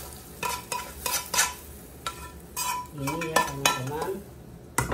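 Fried garlic and coriander in hot oil sizzling as they are scraped out of a small frying pan into a pot of boiling mulukhiyah, with repeated sharp scrapes and clicks of a utensil against the pan. A sharp knock comes near the end.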